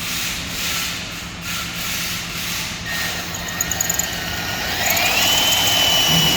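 Electric drill with a 16/64-inch bit enlarging a hole in a metal battery cable terminal lug. The motor's whine rises about three seconds in, then holds at a steady high pitch as it cuts.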